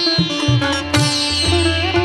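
Background instrumental music: a plucked-string melody with sliding, bending notes over a low drum beat.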